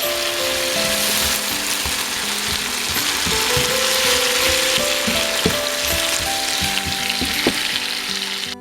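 Vegetables sizzling in hot oil in a stir-fry pan, with frequent scrapes and knocks of the spatula against the pan as they are tossed. The sizzling cuts off abruptly at the very end.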